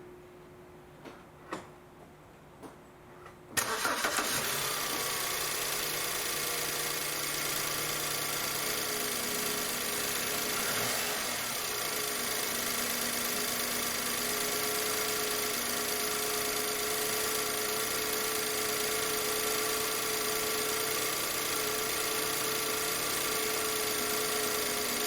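A few faint clicks, then about three and a half seconds in a BMW 318i's four-cylinder petrol engine cranks, starts and settles into a steady idle. Fresh coil packs and spark plugs have cured its misfire.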